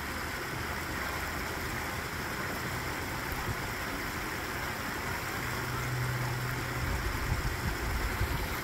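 Steady outdoor background noise: a constant hiss-like wash with a faint low hum under it, and a few low rumbles near the end. The geese make no calls.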